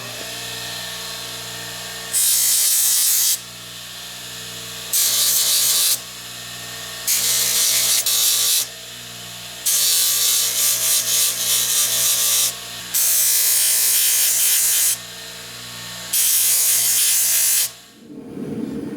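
A power tool spinning a flap sanding wheel, with the steel rebar fork pressed to the wheel six times in spells of one to three seconds, each a loud abrasive hiss over the steady motor whine. The motor winds down and stops near the end.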